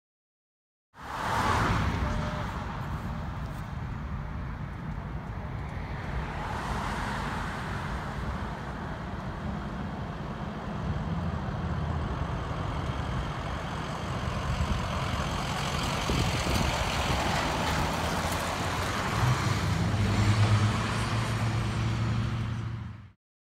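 Road traffic passing: the engine and tyre noise of a pickup truck towing an ATV on a trailer and the cars following it. A deeper, steadier engine hum comes in near the end as a vehicle passes close.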